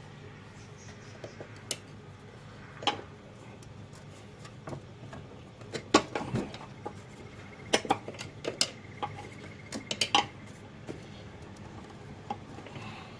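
Metal hand tools clinking and tapping against metal engine parts in irregular sharp strikes while prying at a stuck part, with a cluster of quicker clinks in the second half.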